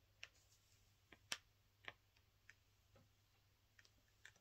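Faint, irregular small clicks of a diamond-painting drill pen tapping drills onto the canvas, about eight in four seconds, against near silence.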